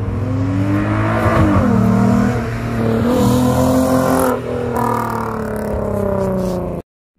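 A car's engine and exhaust accelerating hard past, the pitch climbing, dipping briefly about a second and a half in, then climbing again before falling away over the last couple of seconds. The sound cuts off abruptly just before the end.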